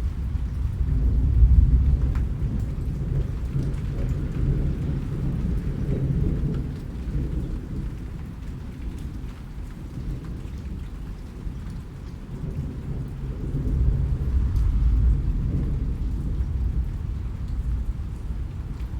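Rain falling with low rolling thunder, the rumble swelling about a second in and again a little past two-thirds of the way through, with scattered drop ticks over it.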